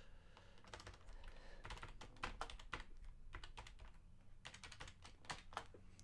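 Quiet typing on a computer keyboard: a run of irregularly spaced key presses.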